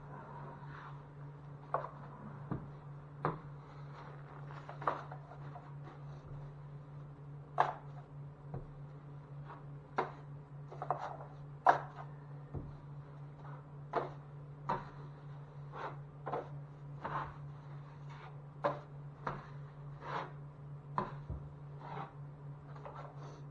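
Hand tools being worked on drywall: irregular light taps, knocks and scrapes, roughly one a second, over a steady low hum.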